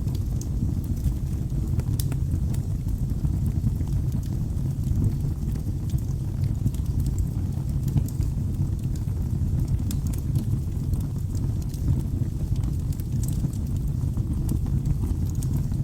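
Wood fire burning in a fireplace: a steady low rumble of the flames with scattered sharp crackles and pops from the burning logs.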